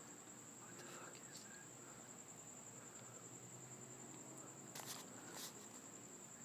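Faint, steady trilling of crickets on one high note, with two brief noisy scuffs about five seconds in.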